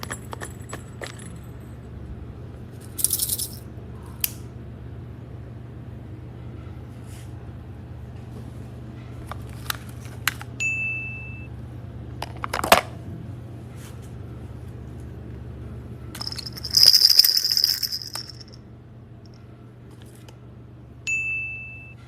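Small hard objects handled: scattered clicks and knocks, a short rattle about three seconds in and a longer, louder rattling burst near the end, with two brief high beeps, over a steady low hum.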